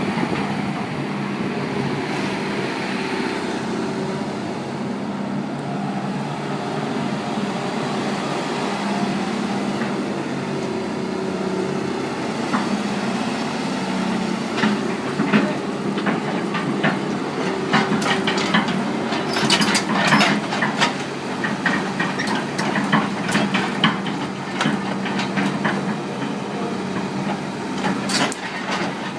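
Hitachi EX200-5 excavator's diesel engine running steadily. From about halfway through come many sharp metallic clanks and knocks, thickest near the end.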